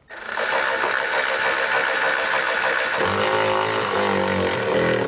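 Milwaukee cordless angled driver running steadily, driving a self-tapping screw into the truck's rocker panel through a side-step bracket; its tone deepens about three seconds in.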